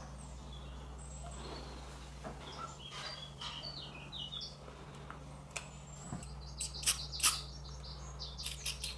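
Short hissing puffs of a small aerosol spray can: two about seven seconds in and a quick run of several just before the end. Faint chirps and a steady low electrical hum sit underneath.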